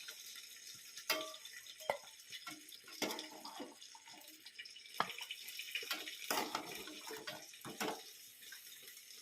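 A ladle clinking and scraping against a pot and serving plate as crab curry is dished out, with wet splashes of gravy. The clinks come as scattered single knocks.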